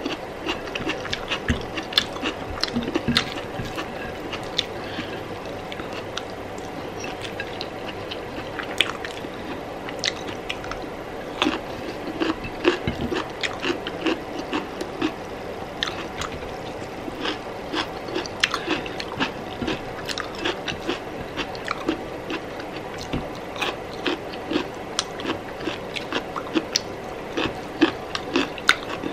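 Close-miked eating of rice and curry: chewing with many small wet mouth clicks and smacks, over a faint steady hum.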